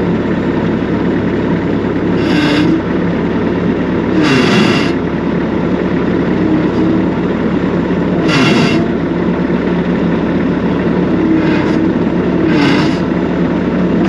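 Bobcat 773 skid-steer loader's diesel engine running steadily. It is cut by several short hissing bursts, each with a brief dip in engine pitch.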